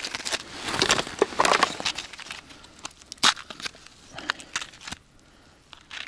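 Small box of spare fishing hooks being opened and the hook packets handled: irregular clicks and rustling, denser in the first two seconds, with one sharp click about three seconds in.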